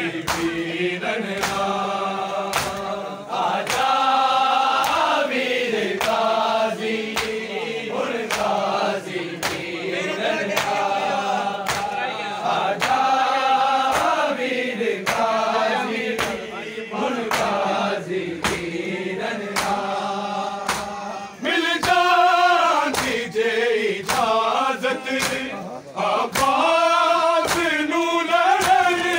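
Men's voices chanting a noha lament together, kept in time by a steady beat of sharp slaps. The slaps are hands striking bare chests in matam.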